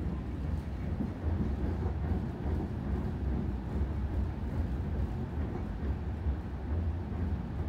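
Steady low rumble of a moving passenger train, heard from inside a carriage as it rolls along the rails.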